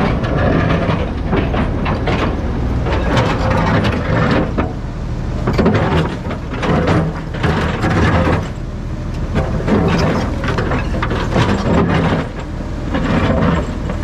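Diesel engine of a tracked earthmoving machine working under load, rising and falling, with repeated metallic clanking and knocking of steel tracks and steel on rock over it.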